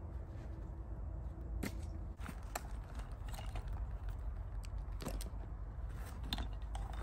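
Gloved hands handling gear, ending at a backpack's straps and buckles: scattered small clicks and rustles over a steady low rumble.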